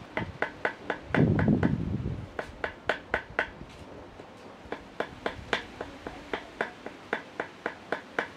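Sharp, even knocks on a hard surface, about four a second, in two runs broken by a short pause, with a brief low rumble about a second in.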